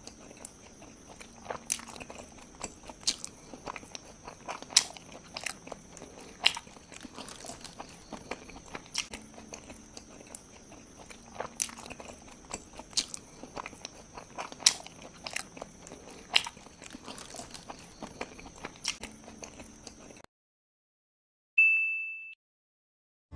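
Soft, irregular clicks and mouth smacks of a child eating and handling a bean-filled steamed bun, over a faint steady hum. Near the end the sound cuts out, and a single bell-like ding rings and dies away.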